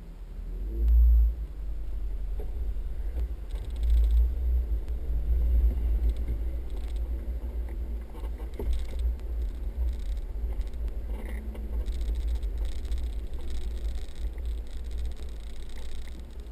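Four-wheel-drive vehicle driving off-road over sand, heard from inside the cab as a heavy, surging low rumble with occasional light rattles and knocks.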